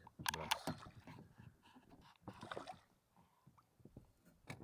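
Handling sounds of a landing net worked in the water at the side of an inflatable boat: a few sharp knocks in the first second, a short rustle about two and a half seconds in, and one more knock near the end.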